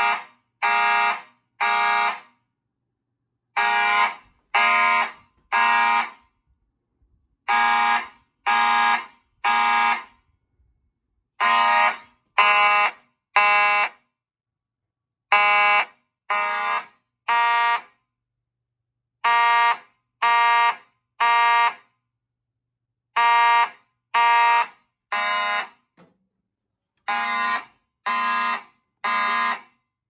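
Simplex horn strobes on a fire alarm panel's notification circuits sounding the temporal-3 evacuation signal: three half-second blasts, a pause, then repeating, eight times over. The panel is in alarm from an activated System Sensor 2151 smoke detector.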